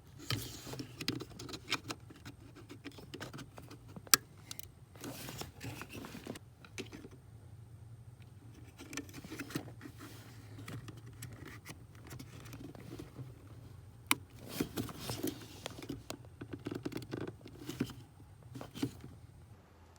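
Hands rustling and scraping among wiring and plastic trim under a car's dashboard while unplugging the throttle pedal connector and fitting a plug-in throttle controller's harness in between. A couple of sharp clicks stand out from the handling.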